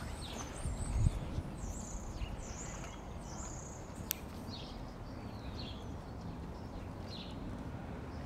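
Small birds chirping, many short high calls scattered throughout, over a steady low outdoor rumble. A soft thump about a second in and a single sharp tick near the middle.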